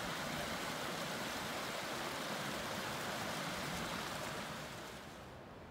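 A small woodland stream running, a steady rushing of water that drops noticeably in level near the end.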